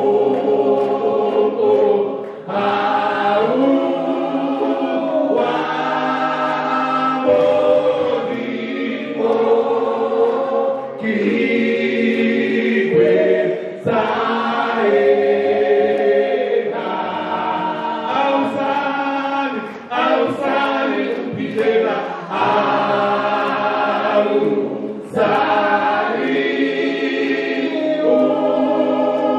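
A church choir or congregation singing a gospel song together, several voices in phrases a few seconds long with short breaks between them.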